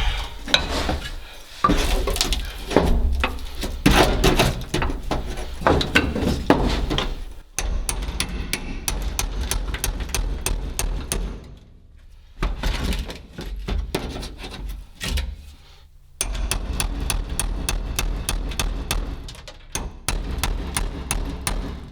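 Irregular clanking and knocking of hand tools and loose metal parts as a truck cab is being stripped, with a few short lulls and a steady low hum underneath.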